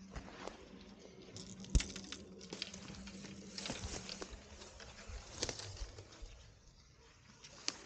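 Leaves and twigs rustling and crackling as someone pushes through dense undergrowth, branches brushing past, with one sharp knock about two seconds in.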